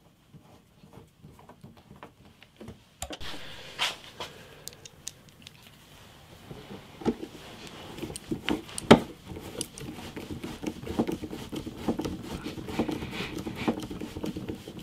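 A hand screwdriver driving small screws into the underside of a MIDI keyboard's case. Faint ticks come first, then from about three seconds in a denser run of clicking and rattling, with a few sharper knocks.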